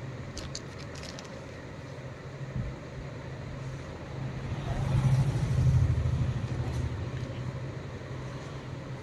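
Low steady background rumble that swells louder about five seconds in and then eases. A few brief crackles of plastic packaging come about half a second to a second in.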